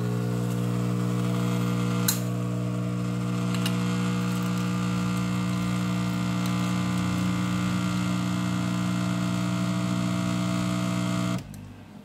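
Dolce Gusto Genio S capsule coffee machine's vibration pump buzzing steadily as it brews coffee into a mug, with a sharp click about two seconds in. The pump cuts off shortly before the end.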